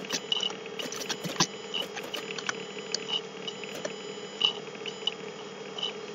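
Computer keyboard keys clicking irregularly, a few keystrokes a second, as code is typed, over a steady low electrical hum.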